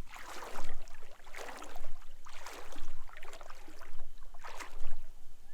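Footsteps moving toward the water's edge, one swishing step about every second, with a low rumble underneath.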